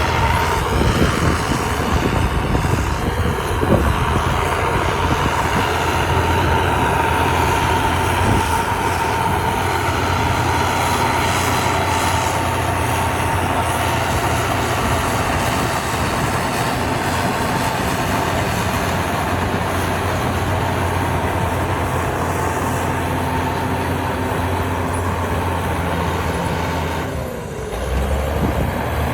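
Heavy diesel earthmoving machinery running steadily under load, with a brief dip and change in the sound near the end.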